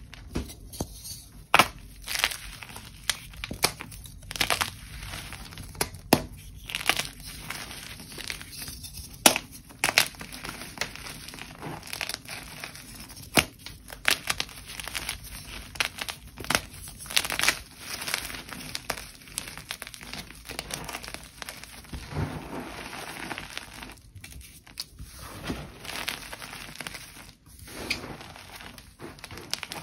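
Dyed gym chalk crushed and crumbled by hand: irregular sharp snaps as pieces of the blocks break, with soft crunching and gritty sifting of chalk lumps and powder in between.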